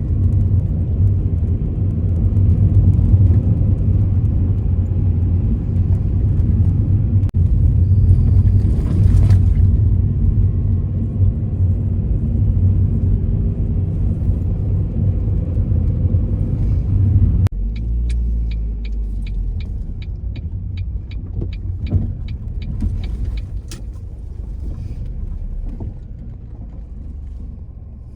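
Car interior noise of a 23-year-old Ford Focus on the move: a steady engine and road rumble that drops suddenly about two thirds of the way through. A regular ticking then follows at about two a second for several seconds.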